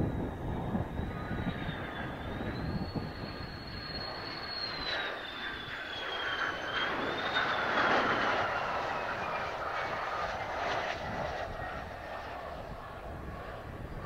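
Mitsubishi F-2 fighter's General Electric F110 turbofan whining on landing approach, growing louder as the jet passes close about eight seconds in, its pitch then sliding down as it goes by. Wind rumble on the microphone runs underneath.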